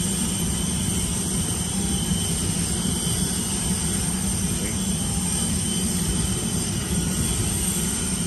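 Steady low rumble and hum of background machinery, unchanging throughout, with faint steady high tones above it.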